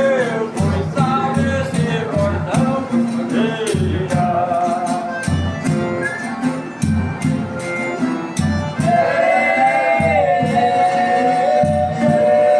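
Folia group singing with tambourine and drum: male voices move through a sung verse, then hold long notes together in the last few seconds, over low drum strokes that come about once a second.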